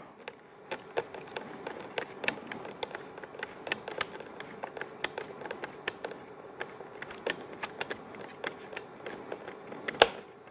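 Small irregular clicks and taps of a multi-tool screwdriver turning a screw into a trimmer's guard mount, with a sharper click about ten seconds in.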